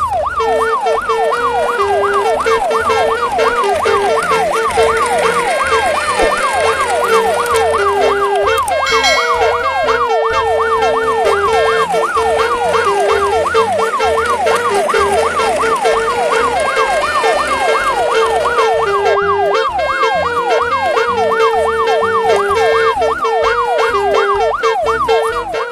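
A siren wailing rapidly up and down, about three times a second, over background music with a steady bass line. It stops near the end.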